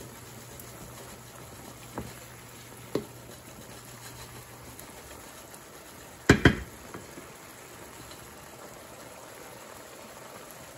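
Shrimp and tomatoes in white wine simmering in a skillet on high heat as the wine cooks off, a steady bubbling hiss. A few light clicks of a wooden spatula stirring against the pan, and about six seconds in a sharp double knock, the loudest sound, as the spatula strikes the pan.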